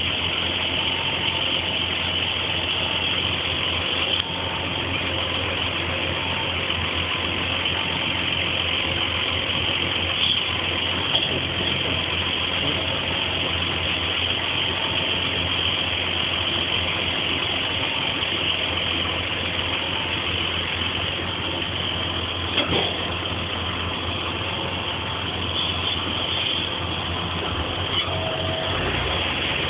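Tractor diesel engine running steadily at low revs, with a couple of brief knocks.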